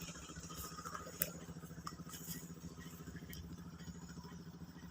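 Small river motorboat (klotok) engine running steadily, a faint low drone with a rapid even pulse. A single sharp click about a second in.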